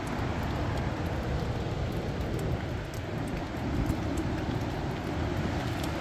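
High wind blowing steadily, with low, uneven buffeting on the microphone and a few faint ticks.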